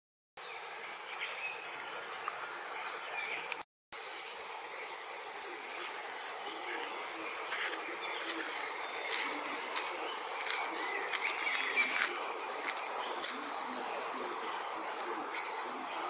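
Insects in the forest keep up a continuous, steady, high-pitched drone. The sound drops out completely for a moment about three and a half seconds in, then carries on unchanged.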